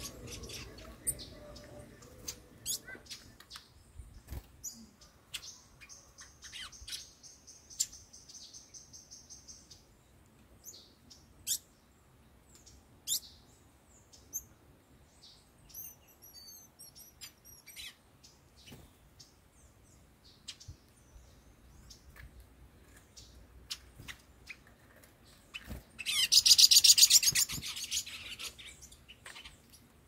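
Small songbirds chirping, with short, high call notes scattered throughout. A steady, high buzzing trill sets in about five seconds in and lasts some four seconds. Near the end comes the loudest sound, a rasping buzz about two seconds long.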